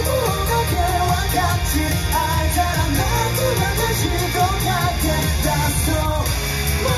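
Pop-rock song with sung vocals over a loud, steady band backing.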